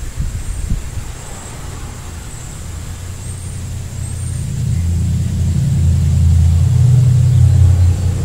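A low motor rumble that builds up from about halfway through and holds loud to the end, with a few soft knocks in the first second.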